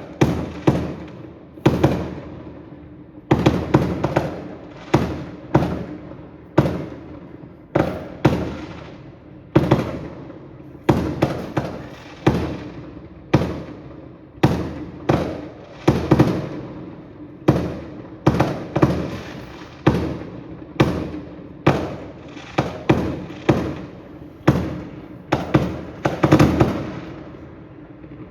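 Fireworks display: aerial shells bursting in a steady run of loud bangs, about one or two a second, each trailing off before the next.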